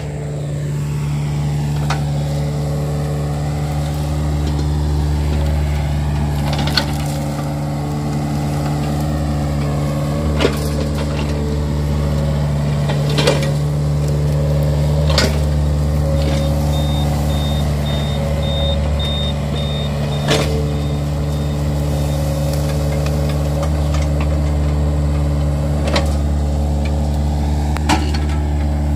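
Yanmar mini excavator's diesel engine running steadily under working load as it digs through roots and soil. Short sharp knocks come every few seconds as the machine works.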